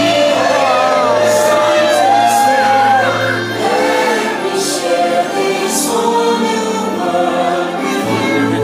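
The fireworks show's soundtrack heard from the crowd over the park's loudspeakers: music with a choir singing long held notes over steady instrumental chords.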